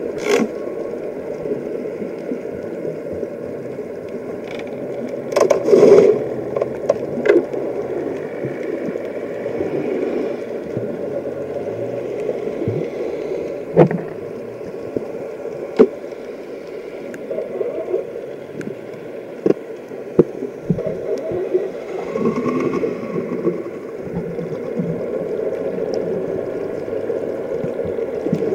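Muffled underwater noise from an action camera in a waterproof housing, submerged in the sea: a steady low rush with scattered sharp clicks and knocks, the loudest a cluster about five to six seconds in.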